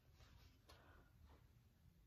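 Near silence: room tone, with a couple of faint soft rustles.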